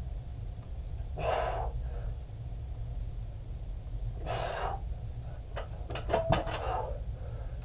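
A man exhaling hard twice, a few seconds apart, the breathing of someone working out. Near the end come a few short clicks and knocks, over a steady low hum.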